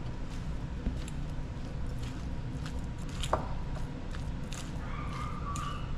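A metal utensil stirring and folding crab meat into a moist cracker-crumb stuffing in a glass bowl: soft squishing with scattered light clicks against the glass, one sharper click about halfway through.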